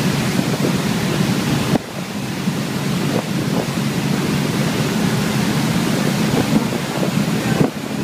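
Wind buffeting the microphone over the rush of a motorboat's churning wake at speed, with the boat's engine running underneath. The noise is steady, dipping briefly twice.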